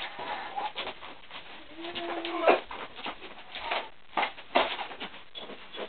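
Packing tape and cardboard being pulled and torn open in quick, irregular rips and crackles, the loudest about two and a half seconds in, with a short whining sound just before it.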